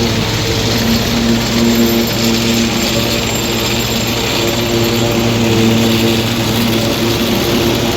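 Tractor engine running steadily at a constant speed, heard from the cab as a loud, even drone with a low pitched hum.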